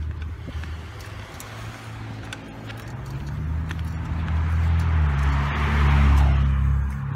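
A car driving past on the street, its engine and tyre noise swelling and loudest about six seconds in.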